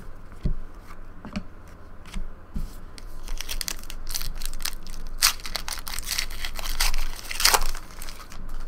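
Foil wrapper of a trading card pack being torn open and crinkled, after a few soft taps; the crackling grows and is loudest near the end.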